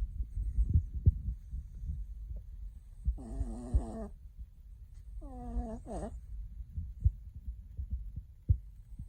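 Pekingese-mix dog snoring in its sleep: a low rattle throughout, with two longer snores that carry a clear pitch, about three and five seconds in.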